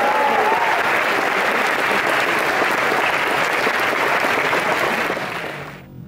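Audience applause, with a few whooping cheers over it near the start, cutting off suddenly near the end.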